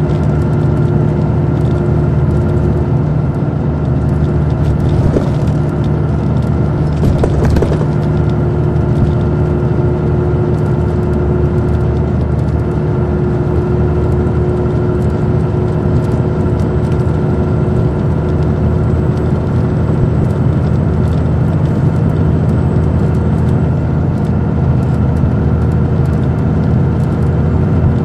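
A 2002 MCI D4500 coach's Detroit Diesel Series 60 engine running steadily with a constant low hum, heard from inside the bus, with mechanical rattling over it.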